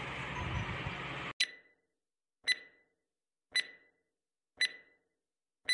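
Countdown sound effect: five short electronic beeps about a second apart, each a sharp pitched tick with a brief ringing tail. Before the first beep there is about a second of steady room background.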